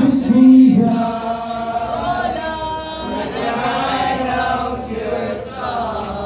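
A group of voices singing together in long held notes.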